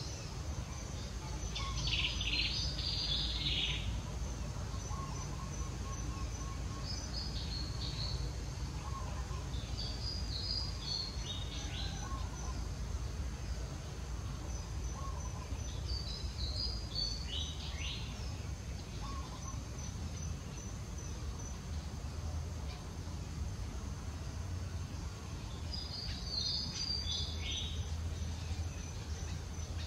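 Birds chirping in short bursts of quick high notes every few seconds, over a steady low outdoor rumble and a faint continuous high insect buzz.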